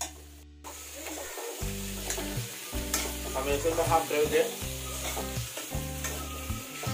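Vegetables sizzling in oil in a stainless-steel kadai while a spatula stirs and scrapes them against the pan. The scraping is busiest about three to four and a half seconds in.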